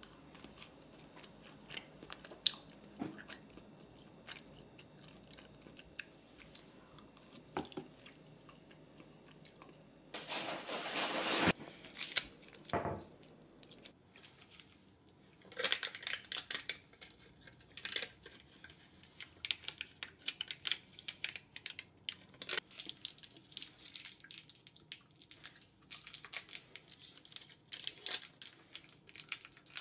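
Someone chewing crunchy cubed radish kimchi, with sharp clicks of metal cutlery on a glass bowl. About ten seconds in there is a louder burst of rustling. Then comes a long run of quick crinkles and clicks as a foil sweet wrapper is peeled open and picked at with a small spoon.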